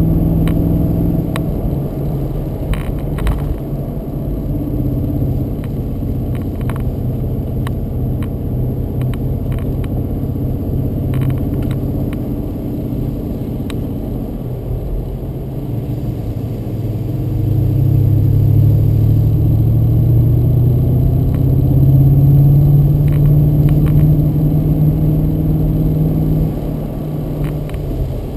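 BMW Z8's 4.9-litre V8 engine running under way, heard from inside the car. Its note sags around the middle, then climbs and grows louder as the car accelerates, easing off shortly before the end, with a few light clicks early on.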